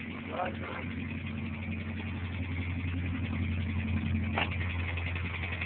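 Honda Civic engine running steadily with a rapid rod knock, the "dat-dat-dat" of a horribly spun connecting-rod bearing on cylinder one.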